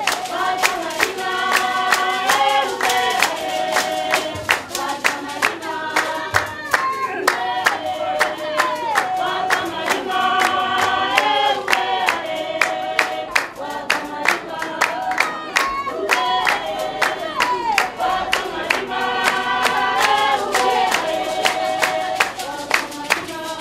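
Basarwa (San) women singing a traditional dance song together, with sharp hand claps keeping a steady, fast beat.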